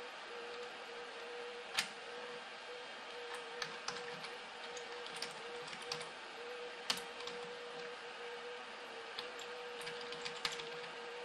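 Computer mouse button clicks, a few sharp clicks scattered seconds apart, over a steady faint hum and hiss.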